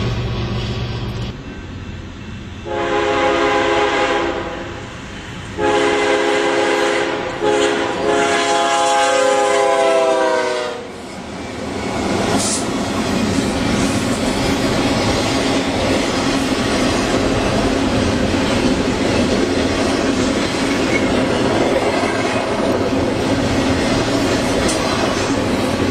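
It opens with a car's low road noise. Then a BNSF diesel freight locomotive's air horn sounds two blasts, the second longer and falling in pitch near its end as the locomotive passes close by. After that a double-stack container train rolls steadily past, its wheels clattering over the rail joints.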